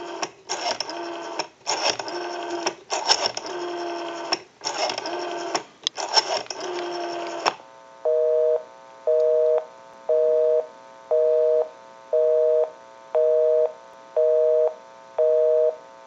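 Model 500 rotary telephone dial being pulled round and spinning back for a series of digits, in separate whirring bursts. About halfway through, a busy signal starts: a steady two-tone beep about once a second, the called line being busy.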